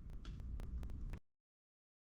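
Faint low rumble with several sharp clicks and a brief hiss, cutting off abruptly just over a second in.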